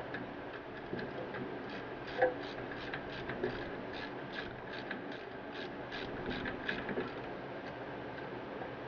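Hand ratchet wrench clicking in a steady run of short ticks, about three a second, with a few louder knocks of tools against metal.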